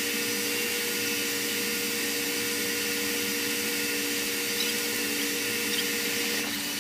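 Steady machinery and ventilation noise of a ship's engine room: an even rushing hiss with two low, steady hums underneath.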